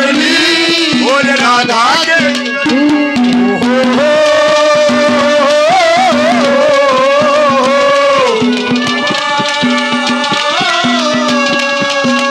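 Haryanvi ragni folk ensemble playing an instrumental passage: a melody with sliding, bending notes over steady held tones and a hand-drum beat.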